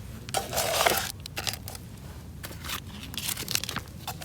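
Crinkling and rustling with scattered small clicks, loudest in a rustle about half a second to a second in.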